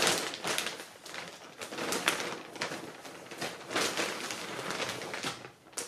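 Plastic mailer bag crinkling and rustling in irregular bursts as balls of yarn are lifted out and set down, dying away just before the end.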